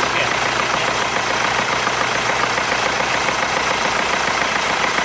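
Ford Transit 2.4 TDCi diesel engine idling steadily with a rapid mechanical knock: the rocker knock that is the engine's complaint.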